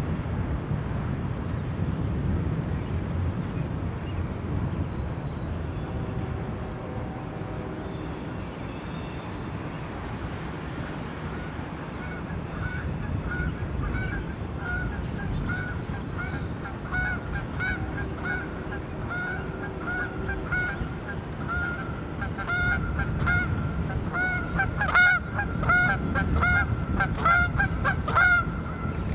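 Freight train cars rolling past with a steady low rumble. From about halfway in, geese honk over it in many short repeated calls, growing louder and more frequent toward the end.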